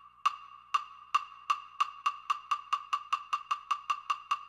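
A pitched wood-block-like tick sound effect, repeating and speeding up steadily from under two ticks a second to about six a second.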